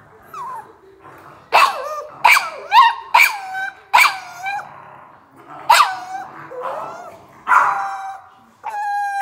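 American bully barking repeatedly, about eight sharp barks that each fall away in pitch, several in quick succession early on and then a few spaced out.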